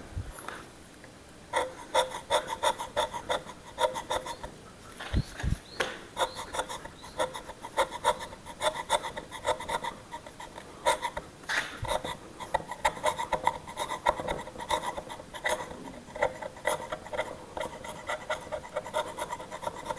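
The flat chisel end of a Mokuba claw bar scraped over old painted wood in quick, short, repeated strokes, rasping as it chips off flaking paint. The strokes begin about a second and a half in.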